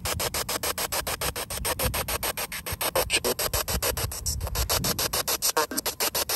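Spirit box sweeping through radio frequencies: static chopped into rapid, even bursts, about eight a second.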